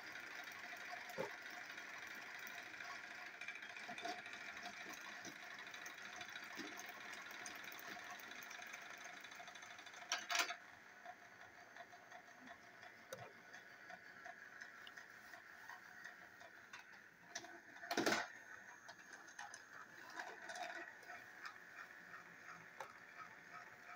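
Small electric motors of two coupled TrackMaster battery-powered toy train engines whirring as they strain against each other on plastic track in a test of pulling strength. The whirr is steady for the first half, then fainter, and two sharp knocks come about ten and eighteen seconds in.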